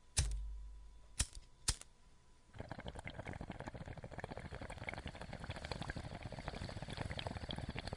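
Intro sound effects: a sudden thump with a low rumble fading over about a second, two sharp clicks about half a second apart, then steady crackling, gurgling bubbling.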